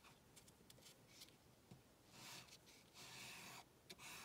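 Faint scratchy rubbing of a wax block crayon on paper, a few short colouring strokes that come mostly in the second half.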